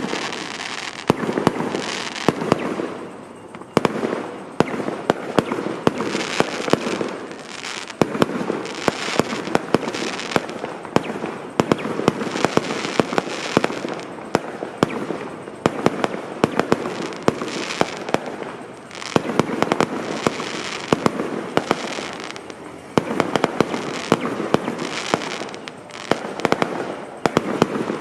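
Fireworks going off in a dense, continuous barrage of crackles and many sharp bangs, easing briefly about three seconds in and again near the end before picking up.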